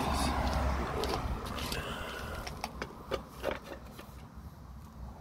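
Low rumble on the microphone, then a quick run of light clicks and taps about two and a half to three and a half seconds in, as an old and a new distributor are handled against each other.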